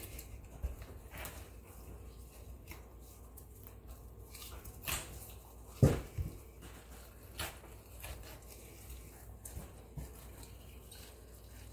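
Quiet clicks and crunches of tin snips cutting inside a bass's body, with one louder knock about six seconds in, then soft handling as the flesh is pulled from the skin.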